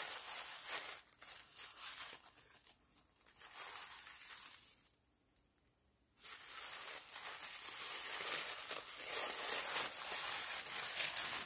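Tissue paper crinkling and rustling as a wrapped bundle is unfolded by hand. The rustling stops dead for about a second near the middle, then comes back louder.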